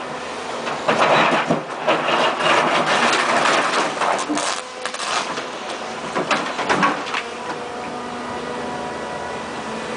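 Volvo EC290 excavator ripping hard, rocky ground with a ripper tooth: crunching, scraping and sharp knocks of steel breaking rock over the engine's running note. The crunching stops about seven seconds in, leaving the engine running steadily.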